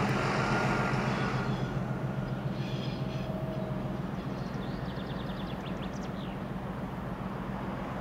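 TEP60 diesel locomotive running light, its engine humming at a steady low pitch that fades slowly as it moves away. Some faint high clicks come and go midway.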